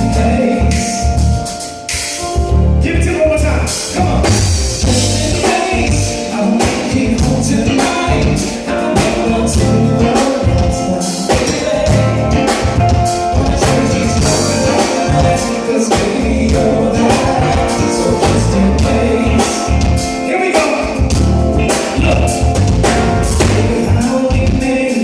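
Live R&B band music with singing over it: a steady drum beat and heavy bass under the vocal.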